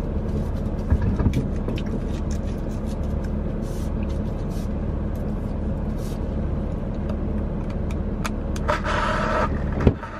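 Steady low drone of a car driving, heard from inside the cabin, with a few light knocks and a short rustle near the end.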